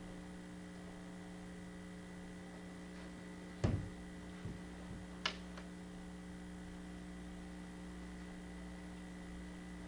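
Steady electrical mains hum in a quiet room, with a dull thump a little under four seconds in and a sharp click about a second and a half later.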